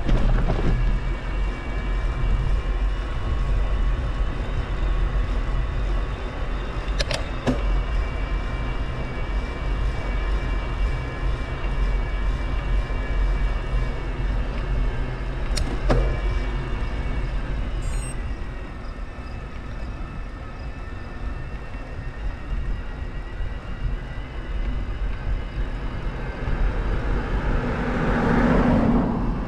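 Steady road and wind noise while moving along a road, with a few faint clicks. Near the end a vehicle passes close by, its noise swelling up and peaking.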